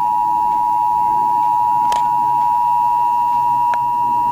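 Emergency Alert System attention signal: a loud, steady two-tone alert sounding without a break. It is the warning that comes just before a spoken emergency alert, here a statewide test message.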